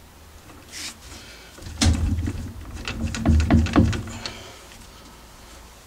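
Metal lathe cross slide wound by hand along its leadscrew, out toward the end of the thread: a short scrape about a second in, then bursts of low rumbling and sharp metal clicks from about two seconds in, loudest a little past halfway.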